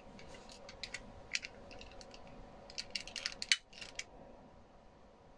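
Electric lighter clicking as it is fired to make sparks: a string of sharp, irregular clicks, thickest a little past the middle, over a faint steady hum.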